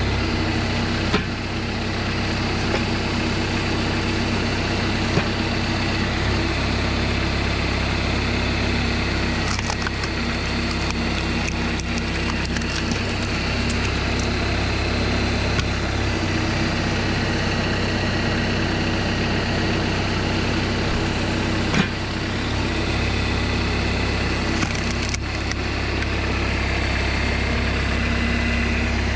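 Homemade tractor's engine running steadily, driving the hydraulic pump of a log splitter, with three sharp cracks of logs splitting over it.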